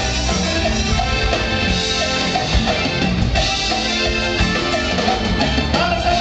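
A live band playing loudly over a steady drum beat, recorded from within the audience.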